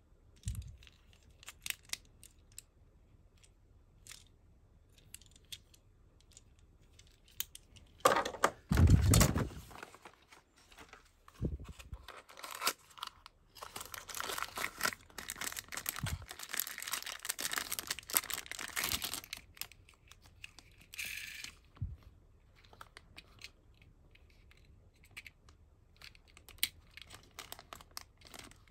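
A small toy car's cardboard box opened and its plastic bag crinkled by hand, with scattered light clicks of the toy being handled. A louder burst of rustling comes about eight seconds in, and a long stretch of dense crinkling follows in the middle.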